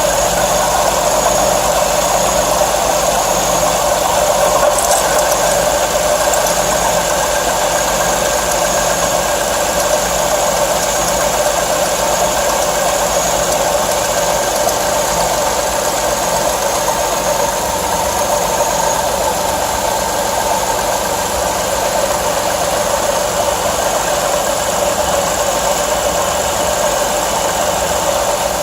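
Car V6 engine running with a steady noise that holds the same pitch throughout, which the mechanic traced to a failing water pump and serpentine belt.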